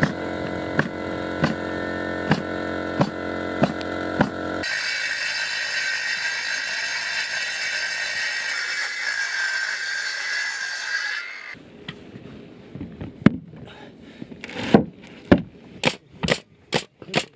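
A steady hum with a regular click, then a circular saw cutting through an OSB sheet with a steady high whine for about six seconds. From about 11 seconds a pneumatic nailer fires into the OSB subfloor, single sharp shots that come faster near the end.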